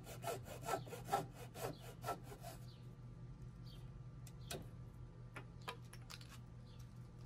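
Hand saw cutting a Douglas fir tenon, quick back-and-forth strokes about four a second that die away about two and a half seconds in. A few faint light knocks follow.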